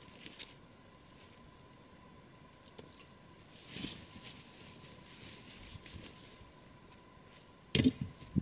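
Canvas tent cloth rustling and swishing softly as it is handled and pulled down. Near the end comes loud crunching of dry fallen leaves underfoot.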